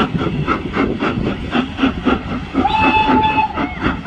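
Steam locomotive No. 85, a GNR(I) V class three-cylinder compound 4-4-0, working through with a steady exhaust beat of about four chuffs a second. About two and a half seconds in, its steam whistle gives one short steady note lasting just under a second.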